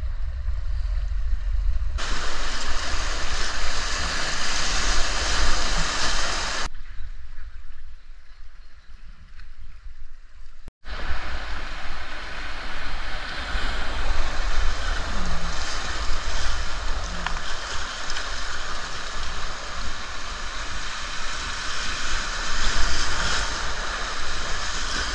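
Rushing river water, a steady noisy rush with a heavy low rumble of wind on the microphone. It changes abruptly about 2, 7 and 11 seconds in, and is quieter between about 7 and 11 seconds.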